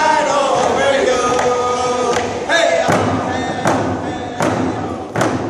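A group of men singing a round dance song in chorus while beating hand drums. Past the halfway point the voices fade and a few strong, evenly spaced drum beats ring out, about one every three-quarters of a second.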